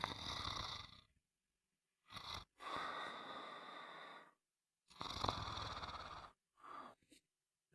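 A sleeper snoring: a series of noisy breaths, some short and some about a second and a half long, separated by brief silences.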